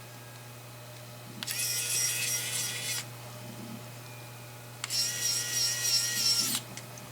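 Sharden electric precision screwdriver's small motor whining in two runs of about a second and a half each, turning small screws.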